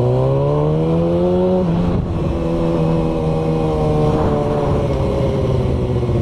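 Sport motorcycle engine accelerating in gear, its pitch rising, then dropping as it shifts up a gear at about a second and a half in, and pulling on at a steady pitch.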